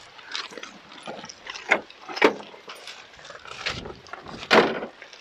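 Irregular knocks, clunks and crunches from people moving around and boarding a parked crawler excavator with its engine off, the loudest clunk about four and a half seconds in.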